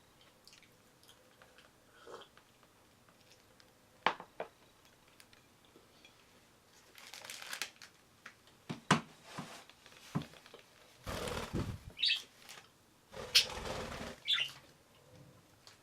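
Pet budgerigars: a few sharp clicks, then several short stretches of rustling and wing flapping, with two short high chirps in the second half.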